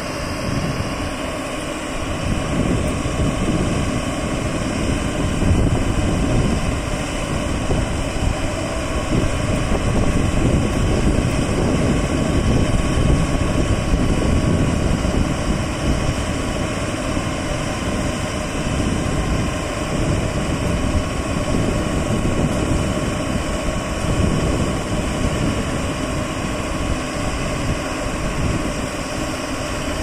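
Diesel truck engine of a truck-mounted Putzmeister concrete boom pump, running steadily to drive the hydraulics as the boom unfolds, with a faint steady whine on top.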